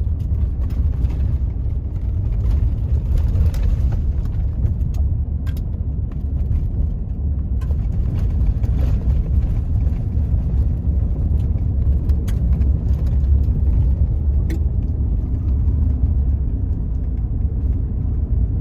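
A vehicle driving, with a steady low rumble and scattered small clicks and rattles.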